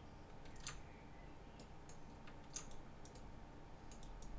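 Scattered light clicks of a computer mouse and keyboard, about ten in all, over a faint steady hum. The sharpest click comes about two and a half seconds in.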